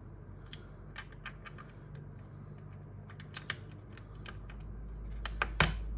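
Scattered small clicks and taps of parts being handled and seated while a TPM module is fitted to a server motherboard, with a louder click near the end. A low rumble grows louder over the last couple of seconds.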